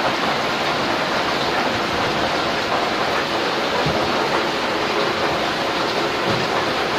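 Steady rushing hiss of water boiling hard in a large rice steamer pot (dandang) over a wood fire, with a few faint crackles.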